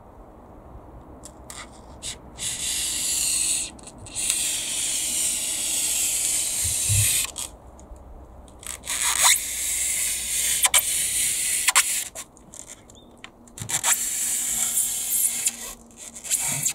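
Utility knife blade drawn through foam insulation board, squeaking and scraping in several long strokes of about three seconds each, with short pauses and small clicks between them.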